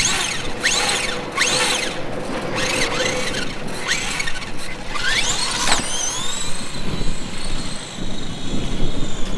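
Electric motor and gears of a small toy RC truck whining, the pitch sweeping up and down in short bursts as the throttle is blipped, then rising about six seconds in to a steady high whine held until the end as it runs at speed.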